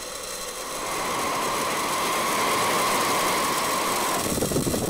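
Rocket engine noise from Falcon 9's nine Merlin 1D first-stage engines firing at liftoff: a steady rushing noise that swells over the first second and then holds.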